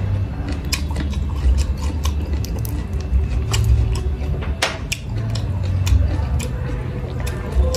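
Close-up chewing and mouth smacking, with many short crisp clicks from bites and from fingers tearing chicken apart, over a steady low hum.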